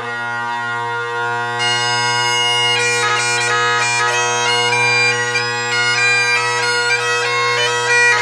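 Highland bagpipes playing. The drones hold a steady low chord, and about a second and a half in the chanter comes in with a melody that steps from note to note.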